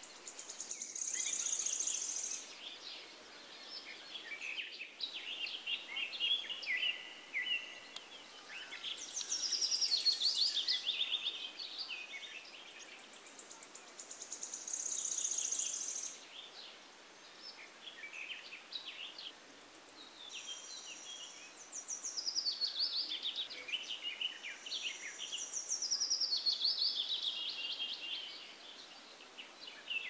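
Birds singing: bursts of quick whistled and trilled phrases, several falling in pitch, repeating every few seconds over a steady faint background hiss.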